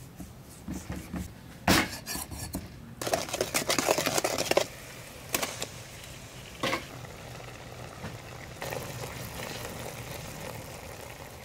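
Cleaver chopping raw pork on a wooden chopping block, with one sharp chop standing out, then a spoon clattering and scraping pork pieces in a metal cooking pot, with a few single knocks. Near the end a steady hiss of pork and duck eggs simmering in the pot.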